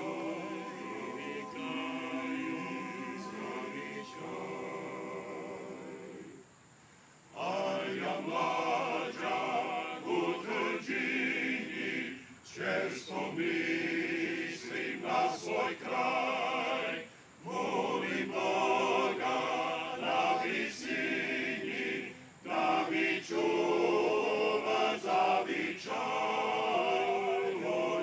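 Men's choir singing a cappella, in phrases broken by short pauses for breath, the longest about six seconds in.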